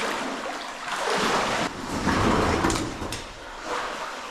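Water sloshing and splashing as people wade through a shallow cave stream, in surges about once a second with a few sharp knocks.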